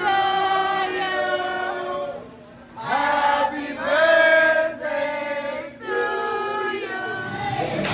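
Music: voices singing long held notes in harmony, choir-like, with almost no drums or bass. The chords change several times, with a short gap about two seconds in.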